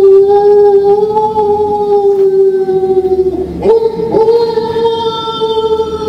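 Drawn-out, eerie howling wail played from a Halloween sound-effects cassette: one held, wavering tone that dips and breaks off a little past halfway, then starts again slightly higher.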